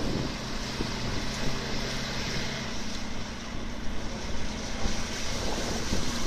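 A WWII army ambulance truck's engine running steadily at low speed as it drives through a shallow river, with the river water rushing and splashing around its wheels.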